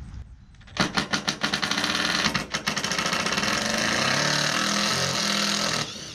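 Makita cordless impact driver hammering on a bolt of a sailboat mast's gooseneck fitting, trying to back it out. It starts about a second in with a few short bursts, then runs without a break and stops just before the end.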